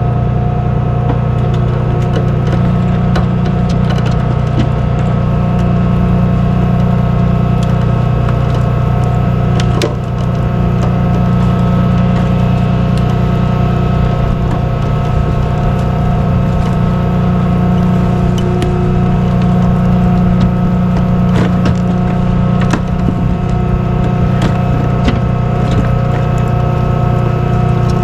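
Tow truck engine running steadily with a deep hum, with a few sharp clicks and knocks about a third of the way in and again past the middle.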